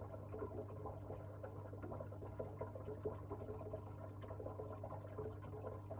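Faint trickling, bubbling water in a paludarium tank, over a steady low hum.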